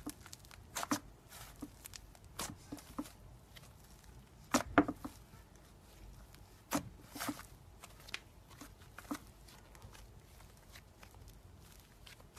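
Soft red slime being squeezed, folded and stretched by hand, giving irregular sticky clicks and small pops, loudest in a cluster about five seconds in and quieter near the end.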